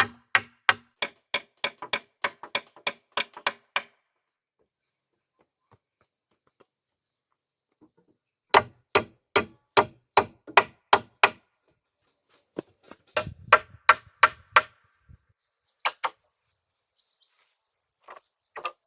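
Hand tool striking wood in quick, even blows, about four a second, in three runs separated by pauses, with a few single knocks near the end.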